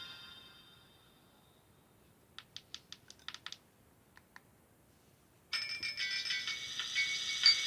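Nokia 5030c-2 mobile phone: a ringtone fades out, then a quick run of about eight keypad clicks and two more a moment later as the next tone is selected. About five and a half seconds in, a new polyphonic ringtone melody starts abruptly from the phone's small speaker.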